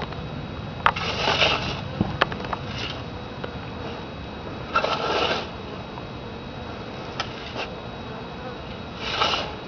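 Soil being scooped and dropped into a small grave: three short scraping, rustling bursts a few seconds apart, with a few sharp clicks between them.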